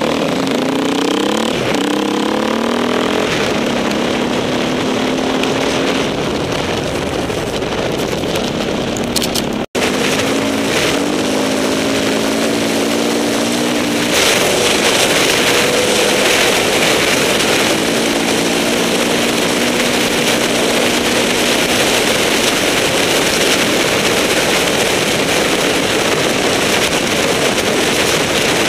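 Off-road motorcycle engine revving up and down as it is ridden over the course, with heavy wind noise on the microphone that grows louder from about halfway. A brief dropout cuts the sound just under ten seconds in.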